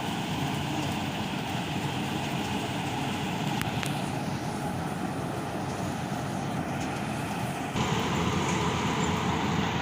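Yanmar AW-70V corn harvester running steadily, a dense, even machine noise. About three-quarters of the way through it abruptly gets louder.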